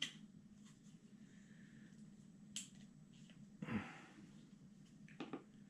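Faint clicks and handling of plastic headphone parts as a headband piece is slid into an XP Deus headphone, over quiet room tone: one sharp click about two and a half seconds in and a few softer knocks later.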